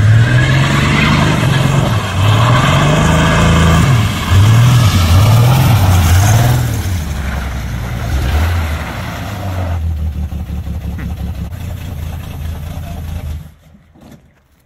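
The stripped 1973 Plymouth Scamp's engine revving hard in several rising and falling surges as the car is driven, then running lower and steadier before cutting off abruptly near the end.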